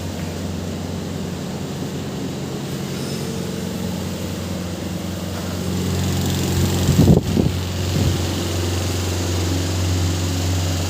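A motor running steadily with a low, even hum, briefly louder about seven seconds in.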